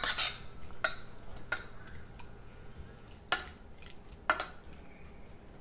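Stirring chopped strawberries in a stainless steel saucepan with a metal utensil, which clinks against the pan about five times at irregular intervals.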